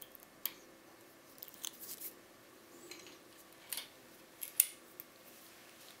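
Lock-picking tools clicking and scraping against the metal of a GEGE pExtra euro cylinder: a series of irregular light metallic clicks and short scrapes, the sharpest about four and a half seconds in.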